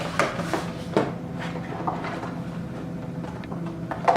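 Hands handling and opening product packaging: scattered light knocks and scrapes, with a louder knock near the end.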